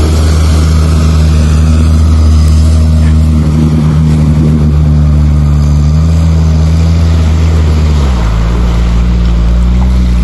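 All-terrain vehicle engine running steadily, its pitch dropping slightly twice near the end of the stretch.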